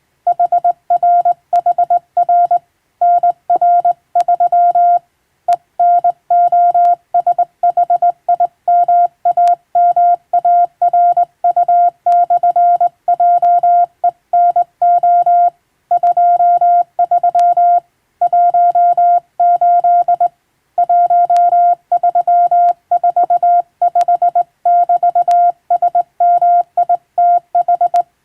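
Morse code sent by hand on a straight key, heard as a single steady beep tone keyed on and off into dots and dashes, with short pauses between words. It begins just after the start.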